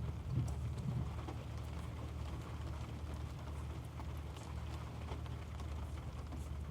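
Soft rustling and faint clicks of Pokémon trading cards being slid and flipped through by hand, over a steady low hum.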